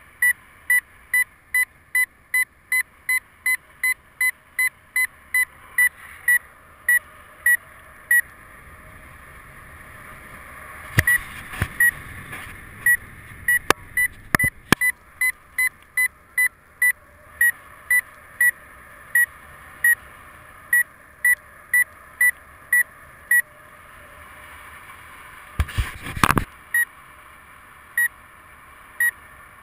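Paragliding variometer beeping its climb tone in short high pips: about three a second at first, then, after a pause, about one and a half a second, which is a weaker climb. Wind hisses on the microphone throughout, with a few sharp knocks around the middle and a loud gust of wind noise near the end.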